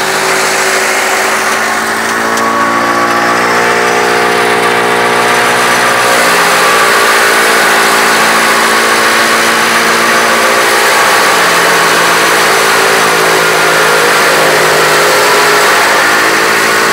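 Tractor engine driving a PTO silage cutter, running loud and continuous while green fodder is fed into the chopper. The engine note wavers for the first few seconds, then settles into a steady drone.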